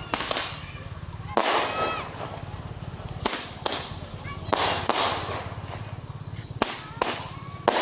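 Small fireworks (petasan) going off: a series of sharp bangs, roughly one every second or two, each with a short fading tail.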